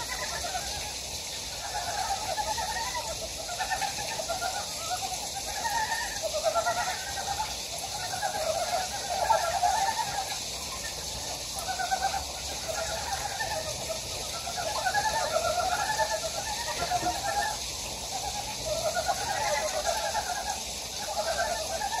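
A chorus of frogs calling in the water: many short, rapidly pulsed croaks overlapping without pause. This is a spring breeding chorus. A steady hiss runs underneath.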